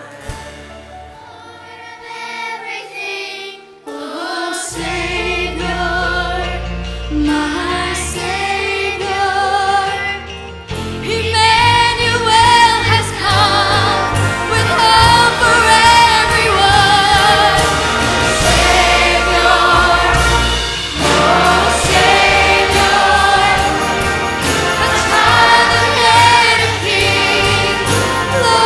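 Church choir singing with orchestral accompaniment, Christmas music. It starts soft, bass comes in about five seconds in, and the full choir and orchestra swell louder about eleven seconds in.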